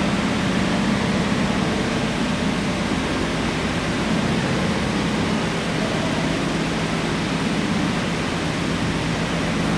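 OZKPM polishing machine running steadily: a constant hum under an even hiss.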